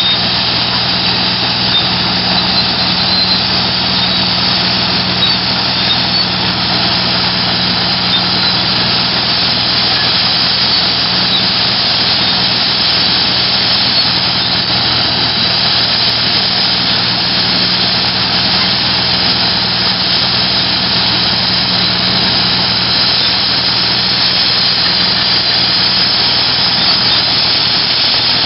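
Diesel engine of a crawler bulldozer running steadily under load while it is dragged as the load in a traction-engine pull, a constant low engine hum under an even roar.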